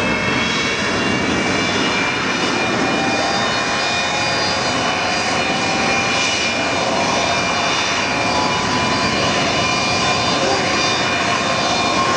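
Antonov An-124-100 Ruslan's D-18T turbofan engines running during engine start: a loud, steady jet roar with several whining tones that slowly rise in pitch as the engines spool up.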